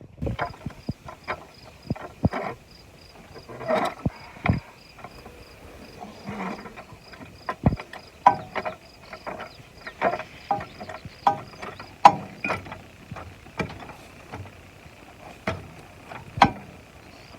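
Irregular knocks and clatters, some sharp and a few with a short ringing pitch, over a steady high insect-like trill that pulses evenly.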